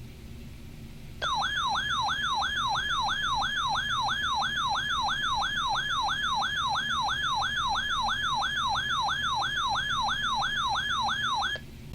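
A weather alert radio sounding its built-in siren alarm for a severe thunderstorm warning. A loud warbling tone sweeps up and down about two and a half times a second. It starts about a second in and cuts off just before the end, over a low static hiss.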